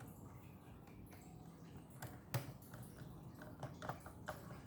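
Faint, scattered small clicks and ticks of a screw being fitted and driven into a laptop's plastic bottom cover with a screwdriver, the sharpest click a little past two seconds in.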